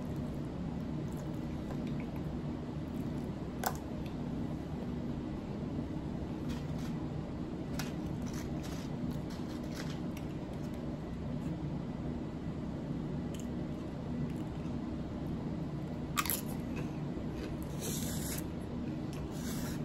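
Close-up chewing of a mouthful of steak and rice, with a few sharp clicks and a short hiss near the end, over a steady low hum.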